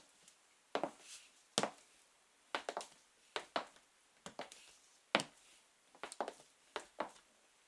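High-heeled sandals walking slowly on a hard floor. Each step gives a sharp heel tap, about one to two a second, and some steps land as a quick double tap.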